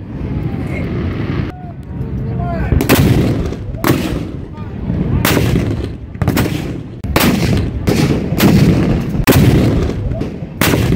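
Civil War field cannons of a reenactor battery firing blank charges one after another: about eight heavy booms in quick succession, each followed by a rolling rumble, mixed with fireworks bursting overhead.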